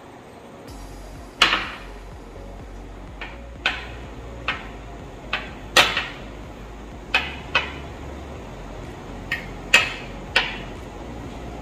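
Metal spoon clinking against a ceramic bowl while stirring a thick chocolate mixture with crushed almonds: about a dozen sharp, irregular clinks, each ringing briefly.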